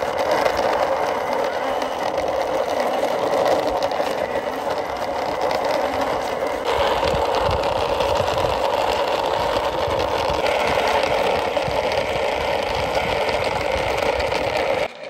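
Plastic toy double-decker bus pushed by hand along a rough concrete wall top, its wheels rolling and grinding in a steady rattling noise. The noise shifts abruptly about a third of the way in and again later.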